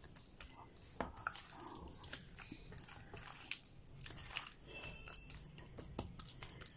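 Hand squeezing and rubbing a wet spice marinade into raw chicken breasts in a stainless steel bowl: faint, sticky squelching with a few sharper clicks, about a second in and again near six seconds.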